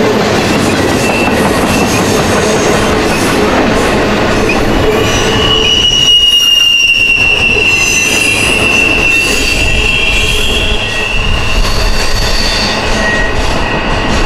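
Norfolk Southern intermodal train of trailers on flat cars rolling past close by, a loud steady rumble of steel wheels on rail. A high, steady wheel squeal sets in about a third of the way through and sinks slightly in pitch before fading about three-quarters of the way in.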